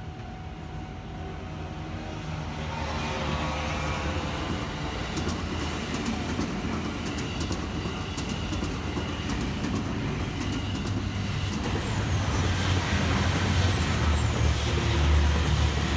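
Train running on the Tokaido Main Line, its rumble growing steadily louder, with scattered clicks and a faint high squeal near the end.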